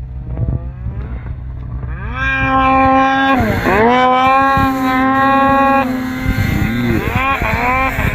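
Snowmobile engine running low for about two seconds, then revving hard to a high, steady pitch with a brief dip, easing off about six seconds in, followed by several quick blips of the throttle near the end.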